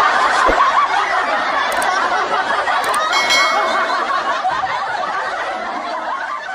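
Many people laughing together, a continuous wash of laughter that slowly fades. About three seconds in, a couple of faint clicks and a short ringing chime sound over it.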